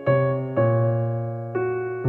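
Background music: an electric piano playing slow, sustained chords, with three chords struck in turn and each left to ring.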